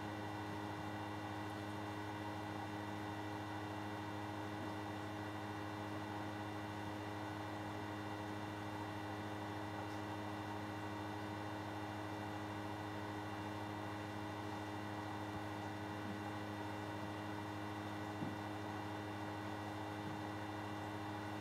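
Steady electrical mains hum with a faint buzz of higher overtones. It is recording-chain noise with no speech, and a single faint tick comes near the end.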